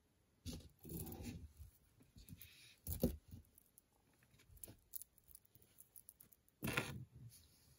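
Hands handling costume jewelry on a tabletop: a fine metal necklace chain and beads being picked up and pulled straight, with faint rustling and light clinks in a few bursts and the sharpest click about three seconds in.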